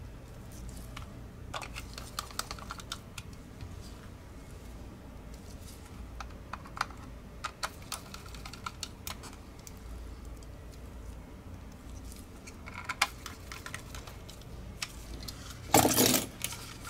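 Small plastic clicks and ticks from a precision screwdriver driving screws into the underside of a Logitech G Pro X Superlight mouse's plastic shell, and the shell being handled. Near the end, a louder brief clatter as the mouse is picked up and turned over.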